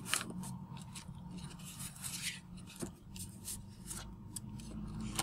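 Square sheet of origami paper being folded by hand: faint, irregular rustling and scraping as a corner is folded over and the crease is pressed down with a fingertip, over a low steady hum.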